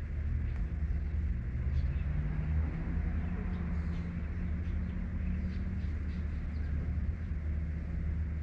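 Low, steady rumble of a motor vehicle's engine on the nearby road, its pitch rising between about one and three seconds in, with faint light ticks or chirps above it.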